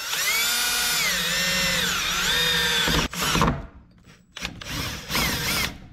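Power drill boring a hole through the Miata's sheet metal near the heater core lines. The motor whine rises and falls in pitch with the trigger for about three seconds, then comes in several shorter bursts.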